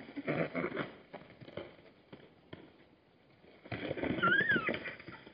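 Hartmann's mountain zebras giving two harsh, breathy snorts about three seconds apart. The second snort carries a short squeal that rises and then falls in pitch.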